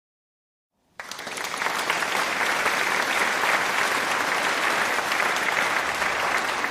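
Applause: many hands clapping, starting abruptly about a second in after dead silence and running on steadily.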